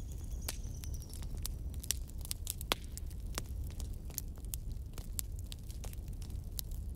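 Light crackling clicks, scattered irregularly, over a steady low rumble.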